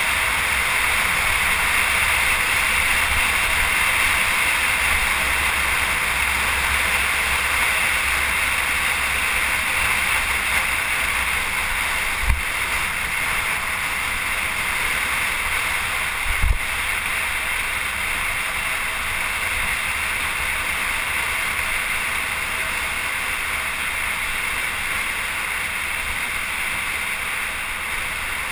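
Steady rushing noise with a fluctuating low rumble, typical of wind and road noise on a moving microphone, broken by two brief knocks near the middle.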